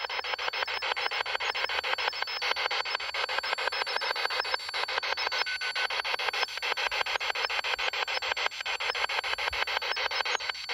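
Spirit box sweeping through radio stations, played through a small external speaker: a steady hiss of static chopped into rapid, even pulses as it jumps from frequency to frequency.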